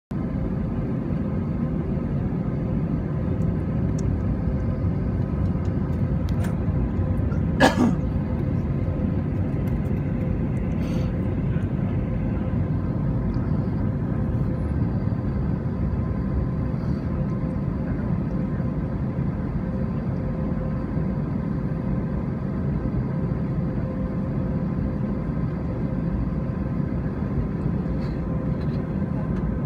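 Steady low rumble of an airliner taxiing, heard from inside the cabin, with a faint steady engine hum. A single sharp knock about eight seconds in.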